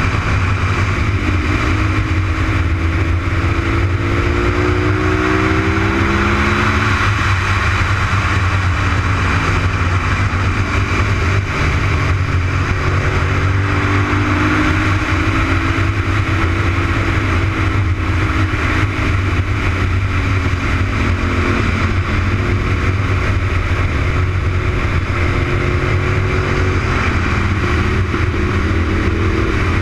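Honda RC51's 999 cc 90-degree V-twin engine running hard on track, its revs rising and falling several times through the corners. A loud steady rush of wind on the onboard microphone covers much of the engine note.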